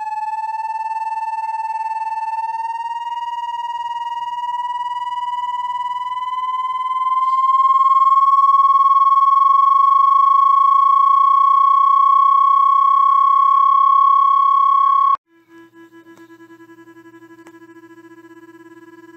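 Synthesized rodent-repellent tone: an electronic whistle with overtones that glides slowly upward, then holds steady and gets louder. About fifteen seconds in it cuts off abruptly and is replaced by a much quieter, lower tone that pulses rapidly.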